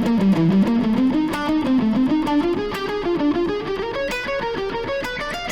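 Electric guitar playing a fast single-note sequence lick, a four-note pattern stepping back and forth while climbing up the scale.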